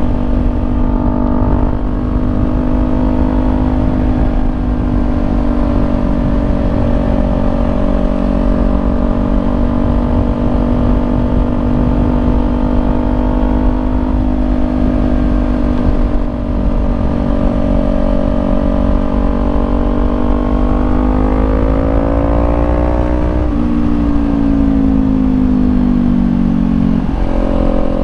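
Kawasaki Ninja 400 parallel-twin engine through a Leo Vince slip-on exhaust, cruising at a steady note. About three quarters of the way in the revs climb, drop sharply at a gear change and fall away, then jump back up near the end.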